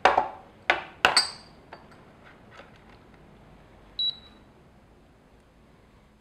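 Small glass shot glasses knocking and clinking as they are set down on a wooden table and onto a coffee scale: three sharp knocks in the first second or so, then a few light taps. About four seconds in, a single short high beep from the digital scale.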